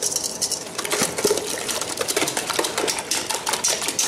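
Whisk beating eggs and milk in a stainless steel mixing bowl: rapid, even clicking of the whisk against the metal bowl.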